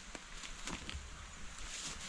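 A heavy stone being rocked and shifted on earth and dry leaves: a few small knocks and scrapes, with a short rustle near the end.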